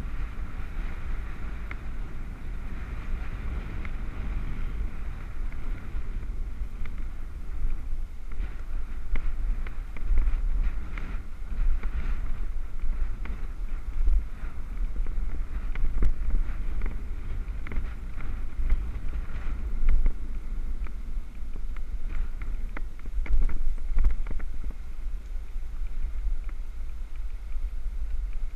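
Wind buffeting the microphone of a helmet-mounted GoPro on a moving road bike: a steady low rumble with a hiss of air and tyre noise over it, broken by scattered short clicks and knocks from bumps in the path.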